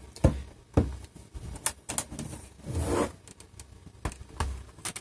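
Plastic clicks and scraping as a spudger pries the hinge cover off an Asus E510 laptop's screen bezel: several sharp clicks spread out, with softer rubbing between them.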